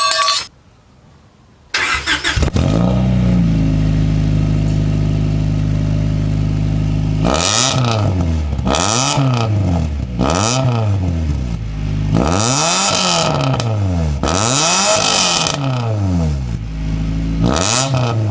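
1998 Honda Prelude's four-cylinder engine, breathing through a freshly installed Speed Daddy aftermarket exhaust with the silencer insert taken out, starts about two seconds in. It idles steadily for a few seconds, then is revved in about seven quick blips, two of them held a little longer, each dropping back to idle.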